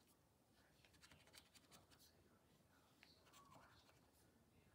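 Faint, scattered scratching strokes as the scratch-off panels on a bingo scratch card are rubbed away.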